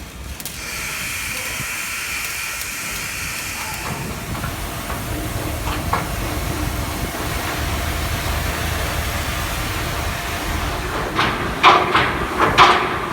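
A steady, loud hiss, with a low rumble underneath from about four seconds in.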